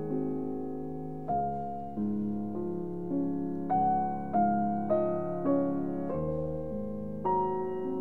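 Background piano music: a slow melody of single struck notes, about one every half second, over held lower notes.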